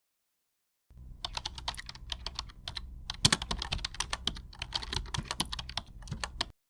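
Rapid, irregular clicking like typing on a computer keyboard, starting about a second in and cutting off abruptly near the end, over a low hum.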